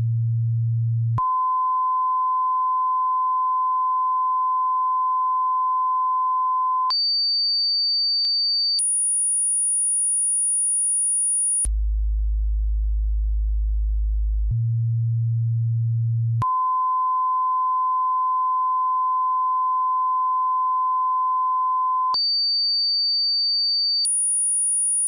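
Electronic line-up test tones stepping through fixed pitches: a low hum-like tone, a long steady mid-pitched tone, a short high tone and then a very high whistle. The cycle starts over with a low tone about halfway through, and each tone starts and stops abruptly.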